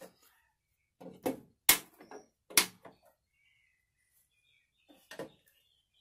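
A screwdriver prying at a riding mower's clip-in plastic ignition switch in the dash. There is a run of sharp clicks and knocks about a second in, then a few more near the end, as the switch's retaining clips are worked loose.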